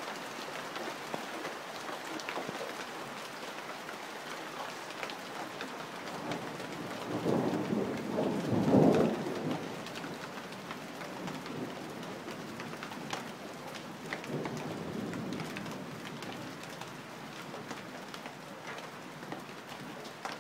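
Heavy downpour: a steady hiss with many sharp drop ticks as rain falls on and through a roof of gapped wooden slats. A rumble of thunder swells louder about seven seconds in and fades by about ten seconds.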